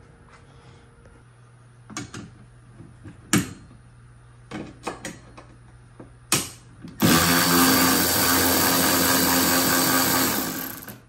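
Cordless ratchet running steadily for about three and a half seconds on a roof-strut bolt of a golf cart, backing off a nylon locking nut. Before it starts there are a few knocks as the tool is fitted onto the nut.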